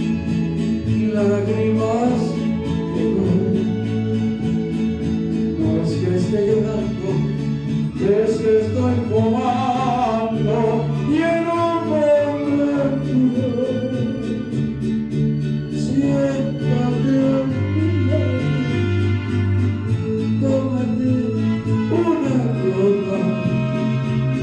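Male voice singing a Spanish-language song into a microphone over instrumental backing music, with the singing strongest in the middle of the stretch and the backing carrying on throughout.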